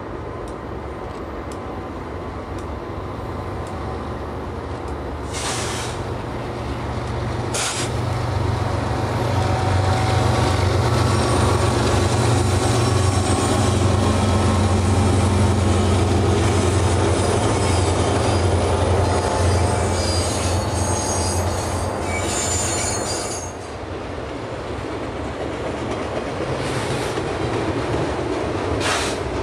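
Freight train passing on a curve. Its diesel locomotives run loudly as they go by, then the freight cars roll past with high wheel squeal against the rail and a few sharp knocks.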